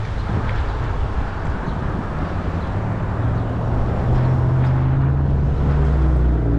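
Street traffic heard from a moving bicycle: a motor vehicle's engine running close by, its low hum growing louder from about halfway through, over a steady rushing background noise.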